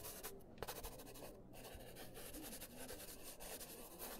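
Handwriting on a paper napkin: quick scratching strokes with short pauses between them.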